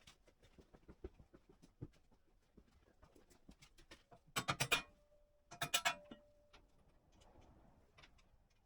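Scattered light clicks and knocks of work on metal parts, with two short runs of rapid, sharp clicking about four and a half and five and a half seconds in.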